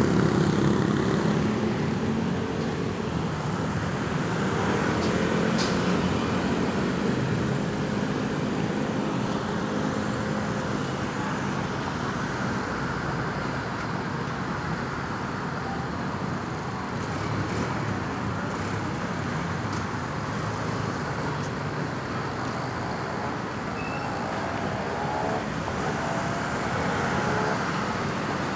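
Steady road traffic noise: vehicles running and passing on a busy road, with a low engine hum loudest in the first few seconds.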